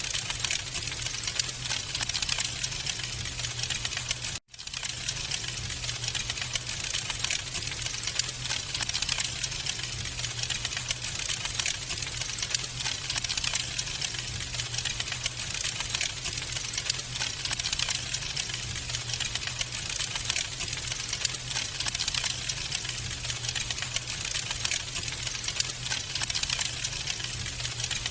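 Wood fire crackling in a fireplace: a dense, fast stream of small pops and snaps over a low steady hum. The sound cuts out briefly about four and a half seconds in.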